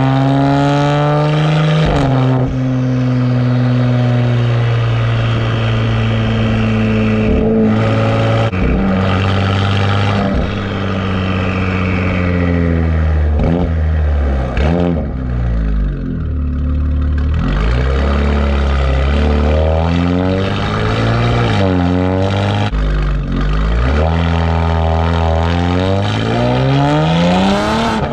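2019 Audi RS5 Sportback's twin-turbo V6 running through catless downpipes and a mufflered exhaust, straight-piped from the turbos back. It holds steady revs for several seconds, then rises and drops in pitch again and again as the car accelerates and shifts through the gears.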